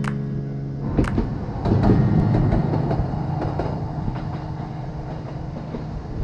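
A vehicle running with a steady low rumble, a few scattered knocks and rattles, and a louder surge about two seconds in.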